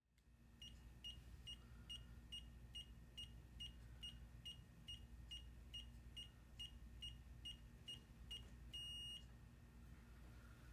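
CAME 7500 gimbal's controller beeping faintly as it powers up: a run of short, evenly spaced high beeps, a little over two a second, ending in one longer beep about nine seconds in.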